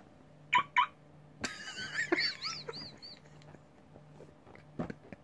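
Newmind F16 car-shaped novelty phone playing its built-in car sound effect through its small speaker. A click comes first, then two short chirps, then about two seconds of warbling, wavering electronic tones.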